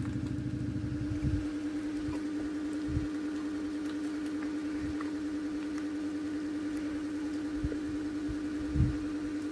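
A steady mechanical hum with a constant pitch, like a fan or appliance motor, with a few soft low thumps, the largest near the end.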